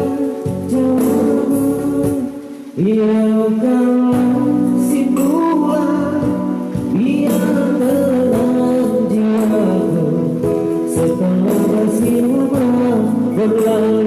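Music: an old pop song with singing over a steady beat.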